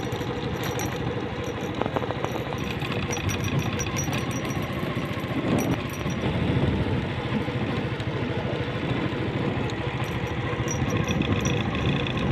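Engine of the vehicle carrying the camera, running steadily with a rapid, even pulse as it travels a rough dirt track.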